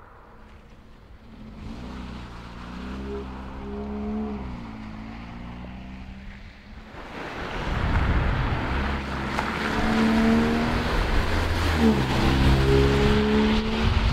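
Cars driving past on a wet, slushy road: an engine note whose pitch rises and drops a few times as it shifts, over a hiss of tyres on wet tarmac. The hiss grows much louder about seven seconds in as traffic passes close.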